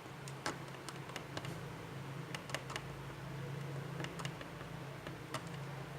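Runny slime being mixed in a plastic container: irregular light clicks and taps from the stirrer, over a steady low hum.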